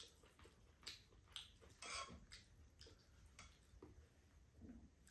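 Near silence with a few faint clicks of chopsticks against a pot and bowls, and soft chewing, as glass noodles are served and eaten.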